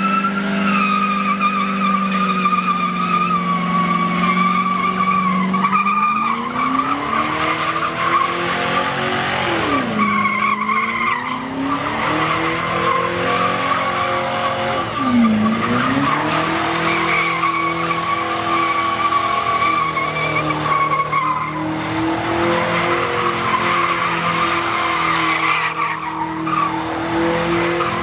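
Car doing a burnout: engine held at high revs with the tyres squealing steadily. The revs drop and climb back twice, about a third of the way through and again just past halfway.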